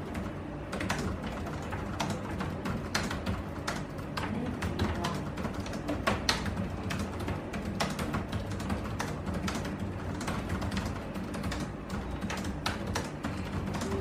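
Fast typing on a laptop keyboard: rapid, irregular key clicks, over background music.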